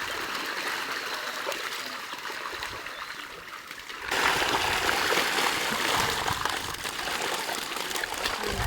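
Water running and splashing steadily, suddenly louder from about four seconds in.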